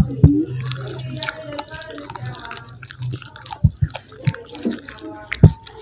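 Close-up eating sounds of crispy fried chicken being picked apart by hand and chewed, with wet mouth smacks and sharp clicks. A low hum stops about halfway through.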